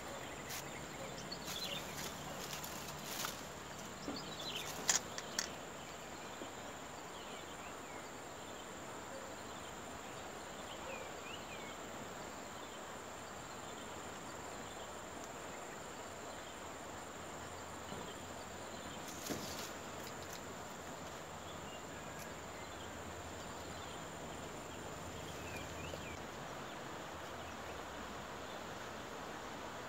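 A steady high-pitched insect drone over outdoor ambience, with scattered short chirps. A few sharp clicks and taps from handling fishing gear come in the first few seconds and once about two-thirds of the way through.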